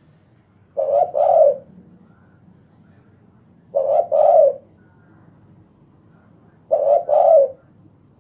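Spotted dove (tekukur) cooing: three calls about three seconds apart, each a short note followed by a longer one.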